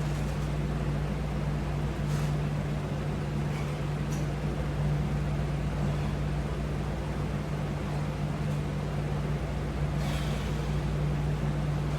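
Steady room hum: a constant low tone over an even hiss, like an air conditioner or fan running, with a few faint soft rustles.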